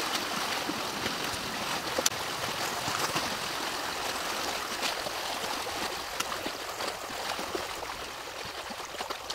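Creek water rushing through a freshly breached beaver dam, a steady gushing flow, easing slightly toward the end. A few brief sharp clicks sound over it.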